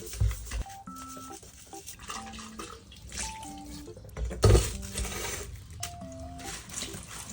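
Background music with a sparse melody of short held notes, over an uneven hiss and a few soft knocks, the loudest about four and a half seconds in.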